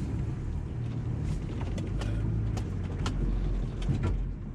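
Four-wheel-drive vehicle's engine running low and steady as it crawls slowly over rock, with scattered sharp clicks and knocks.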